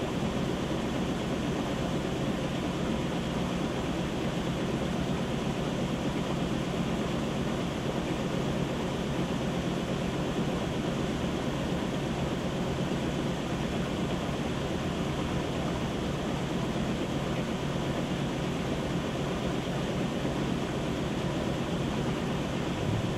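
Whirlpool WTW7300DW top-load washer spinning clothes in its basket, a steady whir with a low hum.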